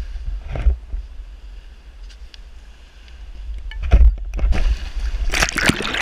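Wind buffeting a GoPro's microphone as a low rumble, with scattered knocks from handling. About five seconds in comes a loud rush of splashing water as the wakeboarder is towed off the sand into the shallows.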